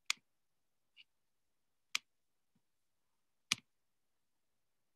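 A handful of sharp, isolated clicks, four loud and two faint, spaced irregularly about a second or so apart, against the dead silence of a video call.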